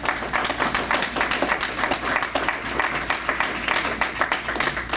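Audience applauding, a dense run of hand claps.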